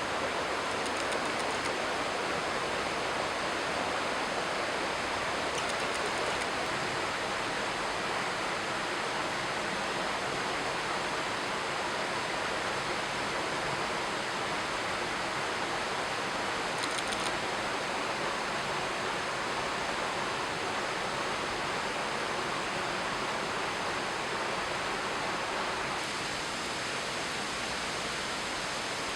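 A waterfall pouring steadily, a constant rush of falling water. It eases slightly near the end.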